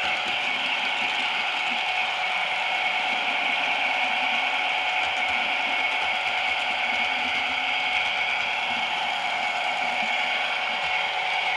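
Hornby Class 66 model locomotive running along the track, giving a steady mechanical whir from its motor and gears.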